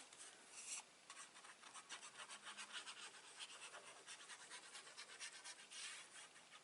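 Faint rapid scratching and rubbing on card stock as a paper panel is handled and pressed into place, a dense run of quick strokes with a louder rub near the end.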